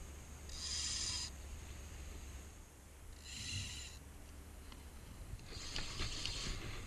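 Spinning reel's drag buzzing in three bursts of about a second each as a hooked oio (bonefish) pulls line off the spool.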